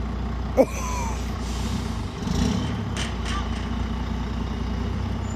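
A lorry's diesel engine running steadily at idle, with a hiss of compressed air being let out from about one and a half to three seconds in. A brief sharp sound with a falling pitch comes under a second in, and a sharp click about three seconds in.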